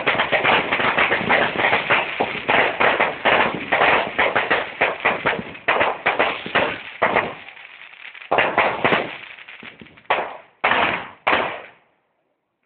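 Fireworks going off: a fast, dense crackle of many small bangs that thins after about seven seconds into a handful of separate bangs, then stops near the end.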